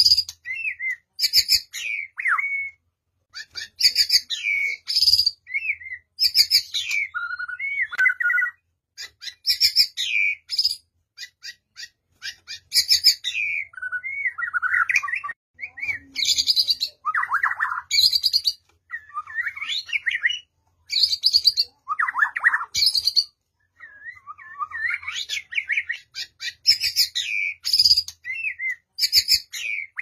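A white-rumped shama of the Bornean form singing: fast phrases of high chattering, clicking notes mixed with lower whistled slurs, each phrase lasting a second or two with short pauses between.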